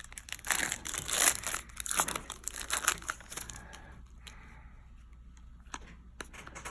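Foil trading-card pack wrapper being torn open and crinkled: crackly rustling for about the first three seconds, then quieter, with a few light ticks.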